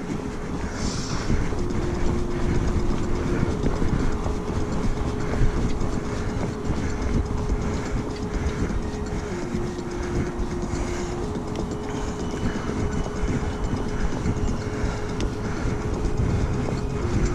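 Steady rumble and rattle of a mountain bike being ridden up a rough trail, with wind buffeting the camera microphone. A faint steady whine runs under it, dropping a little in pitch twice and coming back.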